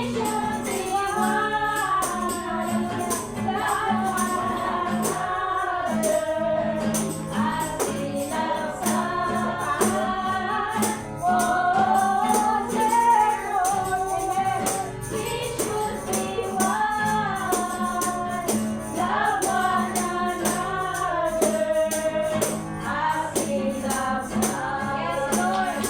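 Worship song: voices singing a melody over a steady shaken-percussion beat and a held low accompaniment.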